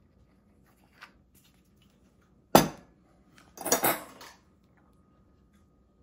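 A sharp clink about two and a half seconds in, then a short rattle of metal forks clinking against each other and a ceramic plate as one is picked up from the pile.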